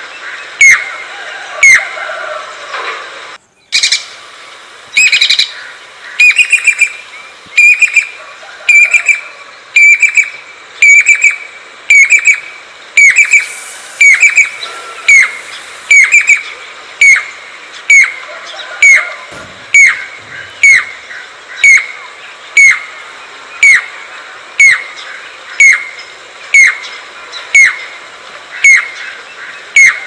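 Jacobin cuckoo (pied cuckoo) calling: a loud, sharp note that drops in pitch, repeated about twice a second in a long steady series, with a brief break a few seconds in.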